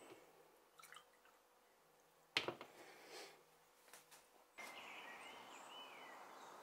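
Faint drips of coffee from a French press and a sharp glass clink about two and a half seconds in. From about four and a half seconds in, a faint steady outdoor background with a few bird chirps.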